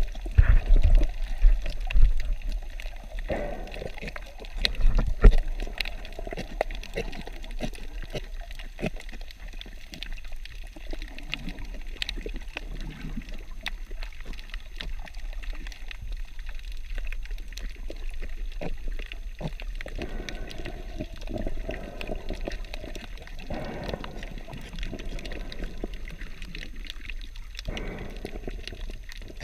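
Muffled underwater sound picked up through a GoPro's waterproof housing: a continuous gurgling wash of moving water over a low rumble. There are louder low thumps in the first six seconds, and scattered sharp clicks throughout.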